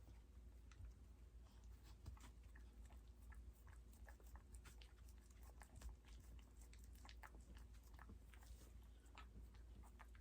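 Faint, irregular wet clicks of a Yorkshire terrier mother licking and chewing just after giving birth to a puppy.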